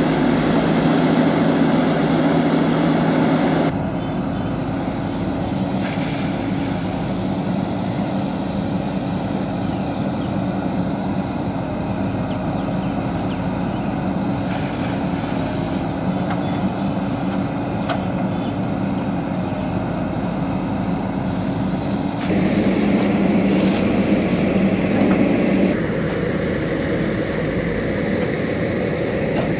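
JCB 3DX backhoe loader's diesel engine running steadily as the machine digs, a low engine hum throughout. It is louder for the first three or four seconds and again for a few seconds past the twenty-second mark, stepping up and down abruptly each time.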